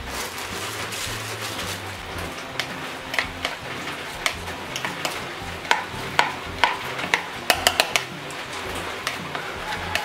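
A metal spoon tossing a wet duck larb salad in a bowl, clinking and scraping against the bowl in irregular clicks that come thickest from about six to eight seconds in. Background music plays underneath.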